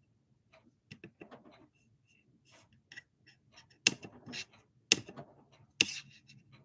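A few soft taps, then three sharp clicks about a second apart in the second half.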